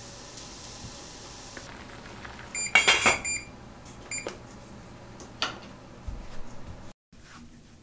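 Kitchen appliance's control panel beeping: a quick run of short electronic beeps mixed with knocks about three seconds in, then one more beep about a second later, followed by a few light clicks and knocks.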